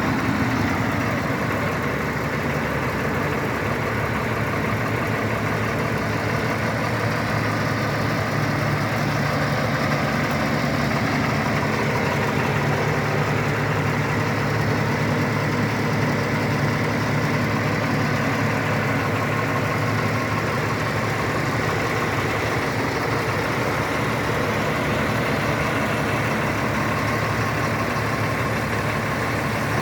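Caterpillar 250 hp diesel engine running steadily, with no change in speed or level.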